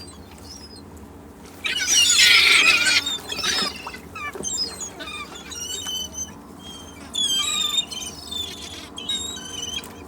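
Seagulls calling: a loud burst of many overlapping cries about two seconds in, then a run of shorter separate calls, over a steady low background.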